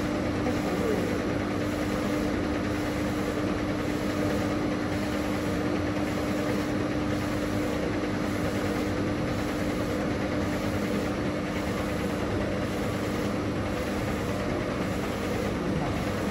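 WeenTek WK-702 DTF printer running, its print-head carriage shuttling back and forth across the PET film over a steady mechanical hum.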